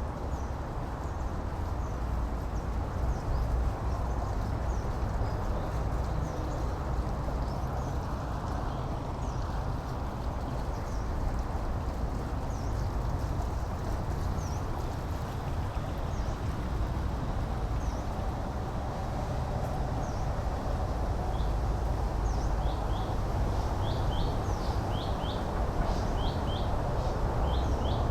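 Small birds chirping with short, high calls, scattered at first and coming in quick clusters near the end, over a steady low outdoor rumble.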